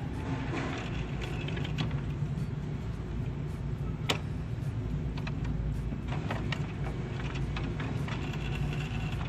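HP Envy Photo 6255 inkjet printer running its start-up calibration: a steady low mechanical hum with scattered light clicks, and one sharper click about four seconds in.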